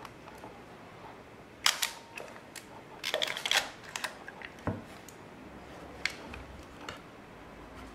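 Carl Zeiss Jena Werramatic 35mm camera firing its shutter and being wound on by turning the ring around the lens barrel, taking blank shots to advance freshly loaded film. A sharp click comes near two seconds in, a quick run of clicks about a second later, then a few single clicks.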